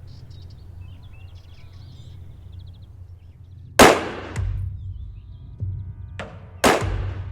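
Gunshots at a firing range: one loud shot about four seconds in, then a quieter crack and another loud shot close together near the end, each ringing out.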